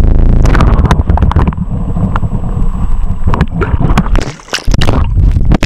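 Loud muffled gurgling and sloshing of pond water over the camera's microphone as it is dunked under the surface, with splashing as it breaks back out about four seconds in.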